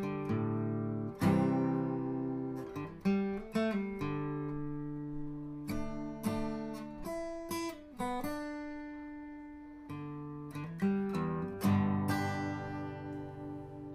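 Background music: acoustic guitar strumming and picking chords, each chord ringing and dying away, growing softer near the end.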